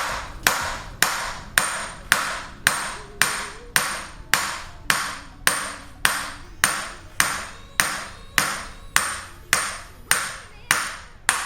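Steady hammer blows, about two a second, on a big socket driving a wheel hub into a new front wheel bearing; each blow rings sharply and metallically.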